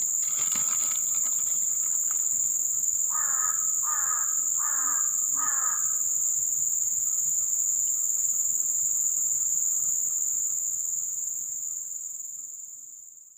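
Steady high-pitched insect chorus, with a bird calling four times a few seconds in, each call falling in pitch. The sound fades out near the end.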